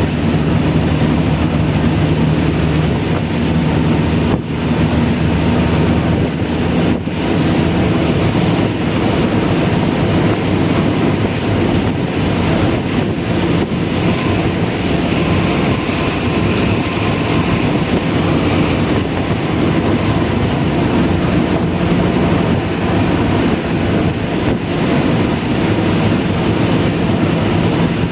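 Steady, loud running noise of a moving vehicle: a constant low engine hum under an even rush of noise.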